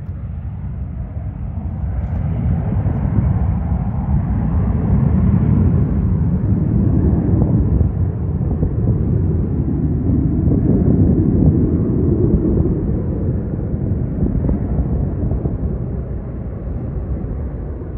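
Two F-35A fighter jets' single F135 turbofan engines flying past in formation: a steady low jet rumble that swells through the middle and eases off toward the end.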